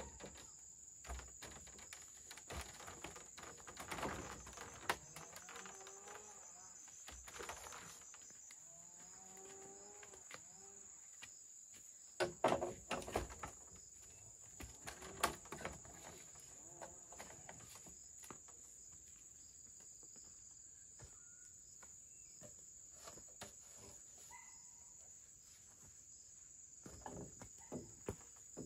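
Insect trilling steadily at a high pitch, with scattered knocks and clatter; a cluster of louder knocks comes about twelve seconds in and a single sharp one a few seconds later.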